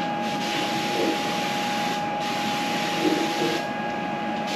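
Air-powered paint spray gun hissing as it sprays chassis black, the trigger let off briefly about two seconds in and again for most of a second near the end. A steady high hum runs underneath.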